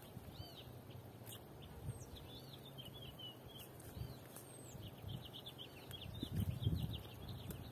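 Small birds chirping over and over in short, high calls. Under them is a faint, irregular rustle of a nylon cast net being handled, which grows louder in the last couple of seconds.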